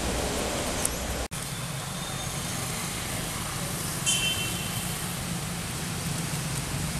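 Steady outdoor background noise, a hiss with a low hum under it, that breaks off for an instant just over a second in. A short high chirp sounds about four seconds in.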